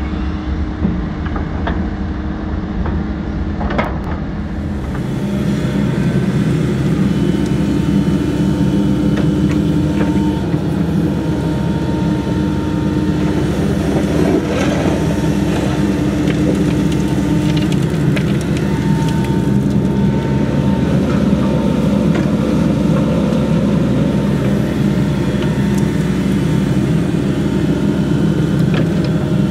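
Heavy construction machine's engine running steadily, growing louder about five seconds in.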